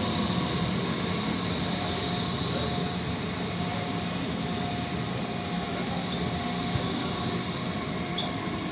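DB Class 430 S-Bahn electric multiple unit running past along the platform: a steady rumble of wheels on rail with a faint steady whine over it.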